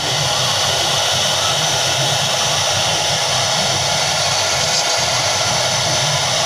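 Electric spindle of a 5-axis CNC router running at speed while a small end mill cuts a white foam block: a steady, hissy machine noise.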